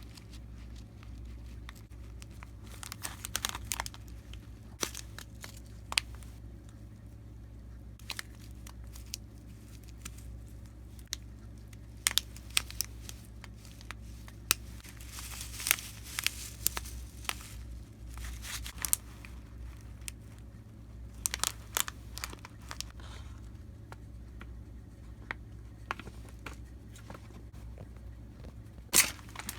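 Plastic packaging being crinkled and torn by hand in short, scattered rustles with quiet gaps between them.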